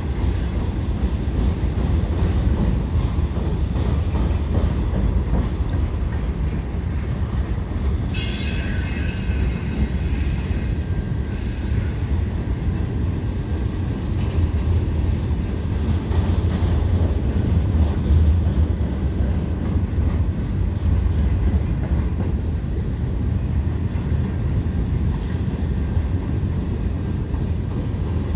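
Freight train cars rolling past with a steady low rumble. About eight seconds in, wheels squeal high-pitched for roughly four seconds, then the rumble carries on alone.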